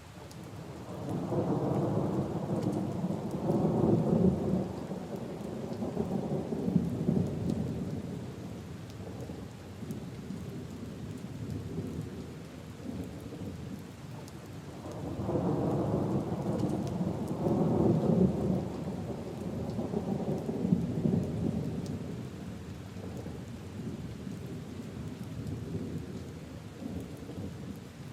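Steady rain falling on leaves and puddles, with two long rolls of thunder rumbling over it. The first rises about a second in and the second about halfway through, each swelling and dying away over several seconds.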